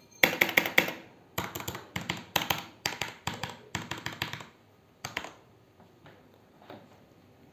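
Typing on a HyperX Alloy Elite mechanical keyboard with Cherry MX Red linear switches: quick runs of key clacks for about four and a half seconds, a few more keystrokes around five seconds in, then only faint taps.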